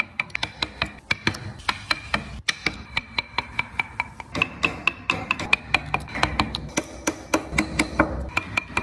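Rapid light taps on a carving chisel driving it into wood, about five knocks a second, each with a short ringing tone.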